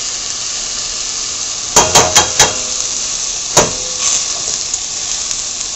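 Chopped onions and sliced mushrooms sizzling in oil in a stainless steel pot. About two seconds in come four quick metallic clinks against the pot, and one more a second later.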